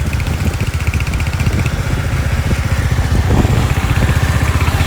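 Motorcycle engine running steadily with a dense, rapidly pulsing low rumble.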